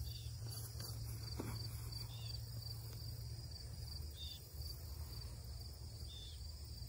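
Insects chirping in the grass, a short high pulse repeating steadily about two to three times a second, over a steady low rumble.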